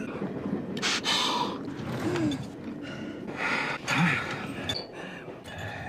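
A man gasping and wheezing for breath, like an asthma attack: two loud, rasping gasps, about a second in and again about three and a half seconds in, with short strained squeaks of voice between them.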